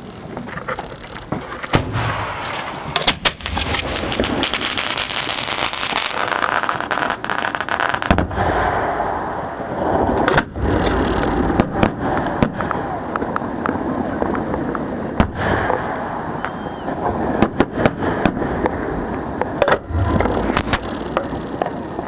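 Fireworks show firing at close range from the launch barge: a dense, continuous run of sharp bangs and crackle, with deep thumps among them.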